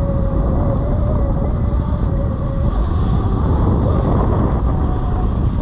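Sur Ron electric dirt bike riding a rough woodland trail: a thin electric-motor whine that wavers with the throttle and fades about halfway, over heavy wind buffeting and trail rumble on the microphone.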